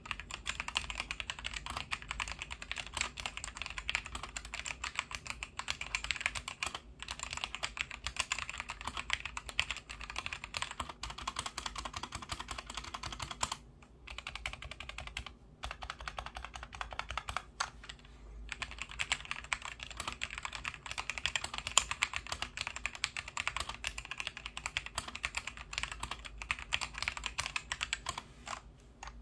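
Fast typing on a K68 wireless mechanical keyboard: a dense run of key clacks, broken by a few short pauses around the middle. The keyboard is not lubricated, so a slight metallic wire sound comes through with the keystrokes.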